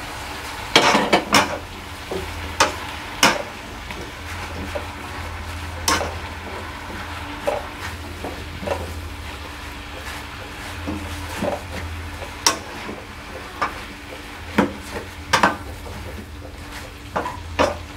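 A spatula stir-frying vegetables in a wok: irregular scrapes and knocks against the pan over a light sizzle of the vegetables frying in oil.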